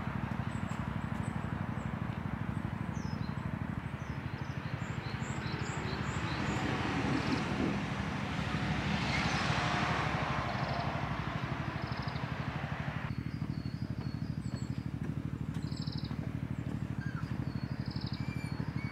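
Small birds chirping on and off, short high calls over a steady low background hum.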